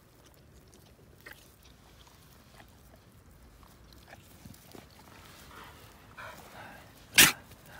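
Two American Staffordshire terriers playing, with faint dog sounds and small rustles, then one short, loud, sharp sound near the end.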